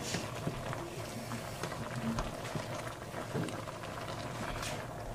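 Pork and pig ears simmering in a steaming pot while a wooden spatula stirs them: a steady bubbling hiss with scattered small clicks and scrapes of the spatula against the pot.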